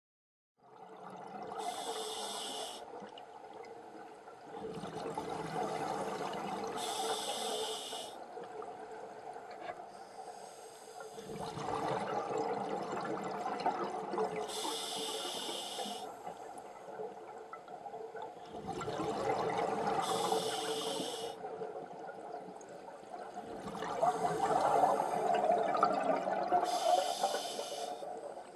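Scuba diver breathing through a regulator underwater: about five breath cycles, each a short hissing inhalation followed by a longer burbling rush of exhaled bubbles.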